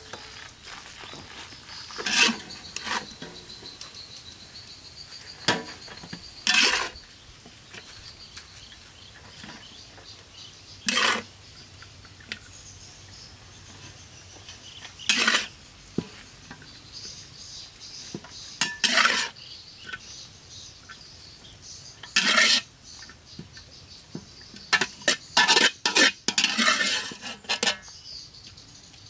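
Metal spatula scraping and clanking against a large steel wok as spaghetti is scooped out onto a steel tray. The clatters come at irregular intervals, with a quick flurry of them near the end.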